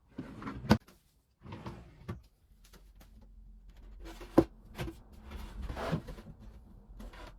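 Wooden cabinet drawers and doors being opened and closed, with a few sharp knocks as they shut, the loudest about a second in and again just past the middle, among quieter sliding and rustling.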